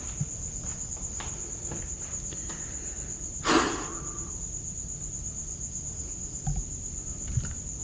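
Crickets chirping in a steady, high, pulsing drone. A brief louder scuff or knock comes about three and a half seconds in, and a couple of soft thumps come near the end.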